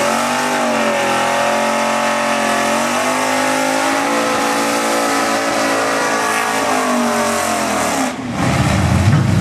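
Ford sedan drag car doing a burnout: the engine revs up and is held high, dipping once and climbing again while the rear tyres spin and smoke. About eight seconds in the revs fall and break off, leaving a lower rumble as the car rolls forward.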